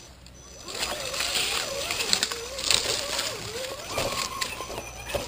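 Axial Jeep Wrangler RC crawler's electric motor and gears whining, the pitch wavering up and down with the throttle and load, over the crunch and crackle of its tyres rolling across dry leaves and twigs. It picks up a little under a second in.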